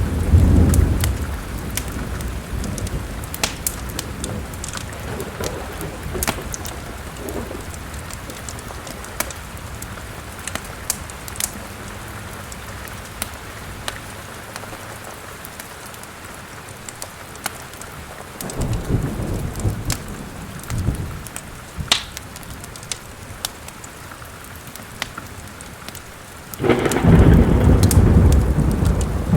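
Steady rain with rolls of thunder: one dying away at the start, another about two-thirds through, and the loudest rumbling in near the end. Sharp little crackles of a wood fire in a fireplace pop over the rain.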